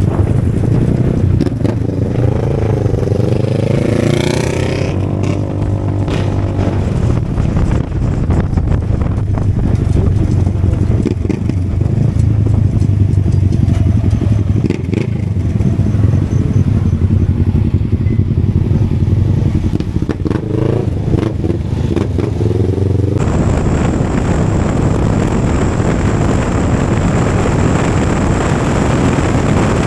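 A motorcycle's engine and exhaust run with a steady low drone while riding slowly in traffic. Other engines rise and fall in pitch as they pass, early on and again a little past two-thirds of the way through. About two-thirds in, the sound turns harsher and hissier.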